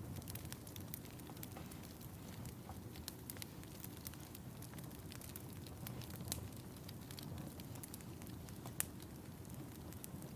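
Wood fire burning in a fireplace, crackling with scattered sharp pops over a low steady rumble. One louder pop comes near the end.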